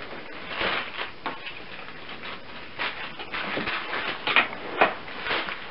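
Folded black tissue paper rustling and crinkling in short irregular bursts as it is opened out into wings on a card bird.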